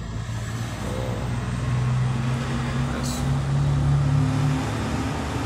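A low motor hum that rises in pitch about a second and a half in, holds for about three seconds, then drops back.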